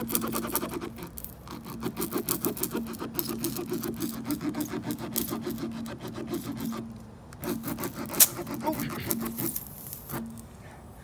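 Tire-plug reamer (spiral rasp) rubbing back and forth in a tire puncture to widen the hole, in rapid rasping strokes. The strokes pause about seven seconds in, then resume for a few more seconds.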